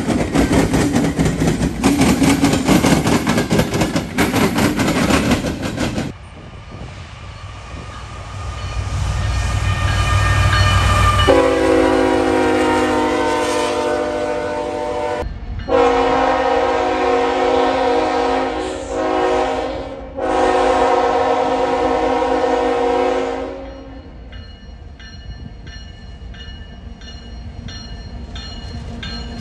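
A freight train rolls past with steady wheel-and-rail noise. After a cut, a GE Tier 4 diesel locomotive draws near with a rising low engine rumble, then sounds its multi-chime air horn in three long blasts. Near the end, a quieter locomotive runs by.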